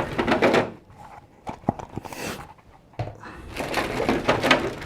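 Crinkling plastic packaging and kit parts being handled, with a short sniff about two seconds in, as the new rubber tyres are smelled.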